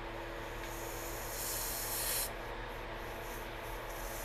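Pressurised nitrogen hissing out of a Fox 2.0 shock absorber's charge valve as the valve core is held open with a small screwdriver under a shop rag. The hiss swells for about a second near the middle, then carries on more weakly, as the shock is slowly depressurised.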